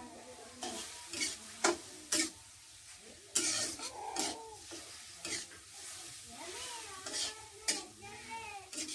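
Metal spatula stirring and scraping food frying in oil in a wok, with a steady sizzle and sharp scrapes of the spatula against the pan every second or so. A cat meows repeatedly in between.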